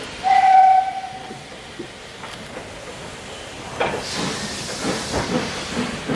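Steam locomotive whistle sounding once, a short steady high note lasting under a second. From about four seconds in, hissing steam and scattered knocks come from a small saddle-tank engine as it moves slowly.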